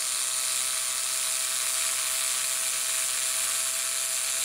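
A small electric motor running at a steady speed, with a constant whine over a hiss, then stopping sharply near the end as it winds down.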